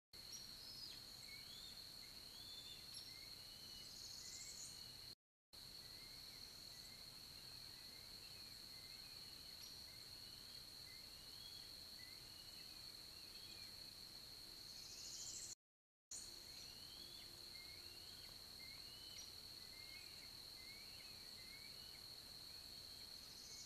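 Faint outdoor ambience: many short bird chirps over a steady, thin, high-pitched whine. The sound drops out briefly twice.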